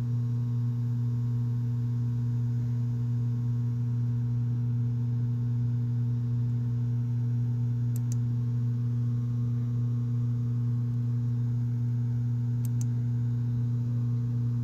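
Steady electrical hum at one fixed low pitch with fainter overtones, unchanging throughout, with a couple of faint high clicks about eight and thirteen seconds in.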